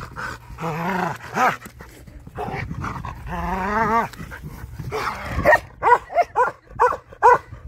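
A dog vocalising in excited play: wavering, warbling whine-growls in the first half, then a quick run of short barks, about two a second, in the last couple of seconds.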